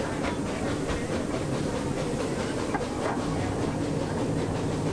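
Open carriages of a miniature park railway rolling along the track: a steady rumble and rattle of small wheels on rails.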